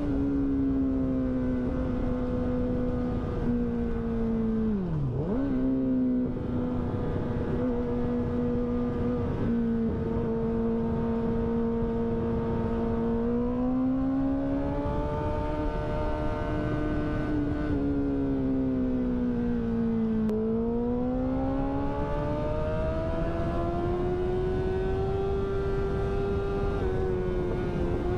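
Yamaha sport bike's engine running at highway speed under a steady hum of wind and road noise. The engine note holds steady, then climbs about halfway through, dips and climbs again as the throttle is opened and eased.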